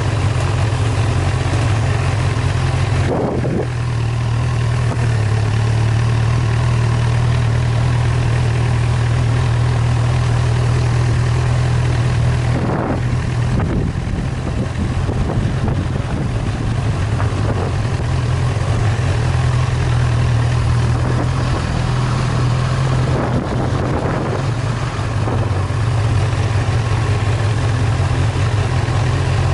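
Engine of a vehicle driving at a steady pace, a constant low drone that shifts slightly in pitch a few times.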